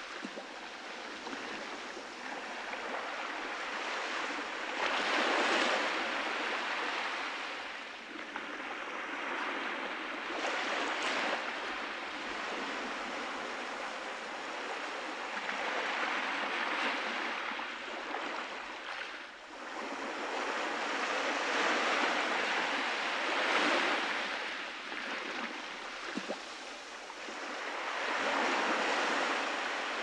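Small sea waves breaking gently on a sandy beach and washing up the sand, each wash swelling and fading every few seconds.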